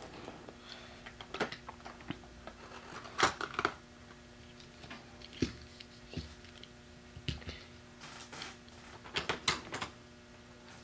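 Scattered faint clicks, taps and rustles of die-cast toy cars and plastic blister packaging being handled on a tabletop, over a faint steady hum.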